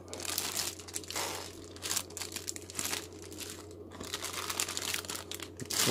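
Clear plastic bags holding plastic model-kit sprues crinkling and rustling in irregular bursts as they are handled and moved about in the kit box.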